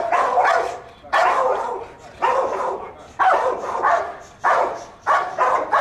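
Police dog barking repeatedly, about one loud bark a second.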